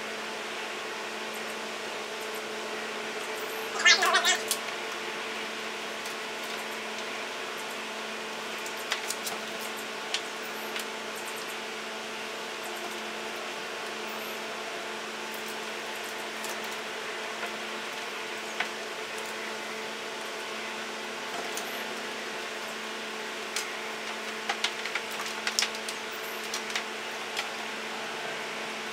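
A steady hum with several fixed tones, with scattered clicks and rustles from a cable being handled and pulled through PVC pipe: a louder scraping burst about 4 seconds in and a run of clicks near the end.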